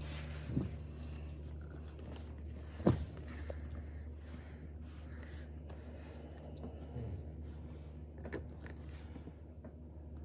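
Handling noise of a large tundra tire being worked onto its axle by hand: a few dull knocks and bumps, the sharpest about three seconds in, over a steady low hum.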